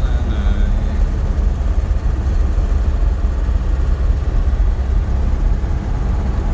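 GAZ-21 Volga's four-cylinder engine and road noise on the move: a steady, unbroken low rumble.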